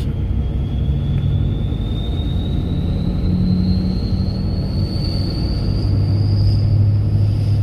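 2000 Hummer H1 under way, heard from inside the cab: steady low engine and road rumble, with a thin high whine that rises slowly in pitch.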